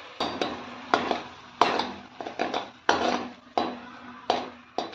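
Brass spoon clinking and scraping against a hammered brass kadai while stirring tomato purée into the masala: a run of about ten sharp metallic clinks at uneven intervals.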